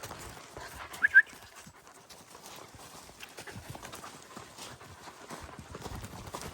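Belgian Shepherd Groenendael puppies moving about, with many small irregular clicks like claws on a hard floor. Two short, high yips come about a second in.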